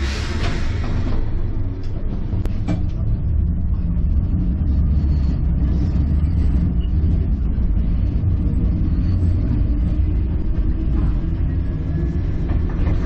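Enoden electric train running along the line, a steady low rumble of motors and wheels on the rails with a few light clicks, after a short hiss in the first second.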